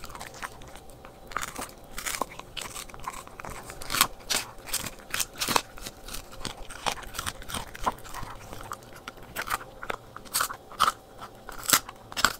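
Corgi crunching and gnawing on a calf neck bone held out by hand: irregular sharp crunches, about two a second.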